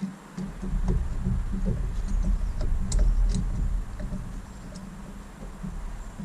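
Handling noise from work on a trolling motor's brush housing: an uneven low rumble with scattered small clicks and taps.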